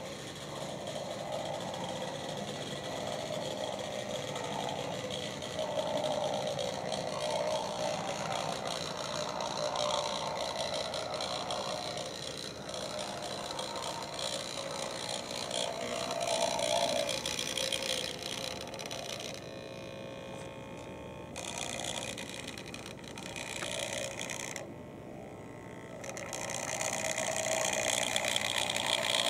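HO-scale model trains, among them a cast brass Bowser 4-8-2, running on the track. Their small electric motors and gears whir steadily and the wheels rattle on the rails. The sound drops away briefly twice in the second half.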